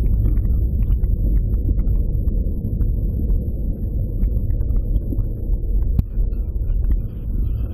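Muffled low rumble heard underwater in a shallow river, with scattered small clicks and ticks and one sharper click about six seconds in.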